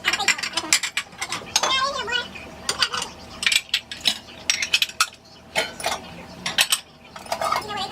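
Repeated clinking and clattering of dishes and utensils being handled, with brief bits of voice in between.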